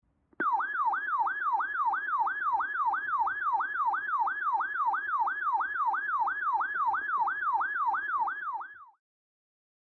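Electronic siren on a fast yelp, its pitch sweeping up and down about three times a second. It starts abruptly and stops about a second before the end.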